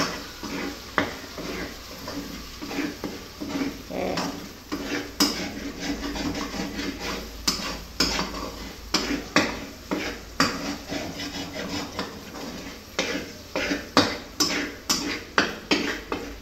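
Metal fork scraping and clicking against a black wok while an egg is broken up and stirred into a frying tomato, onion and potato mixture, over a faint sizzle. The clicks come irregularly at first and settle to about two a second near the end.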